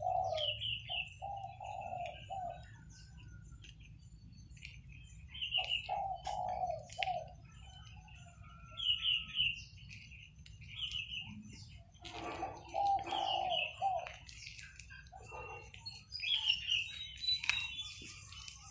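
Birds calling, some with lower notes and others with higher chirping phrases, repeating in bursts every few seconds over a faint steady low rumble.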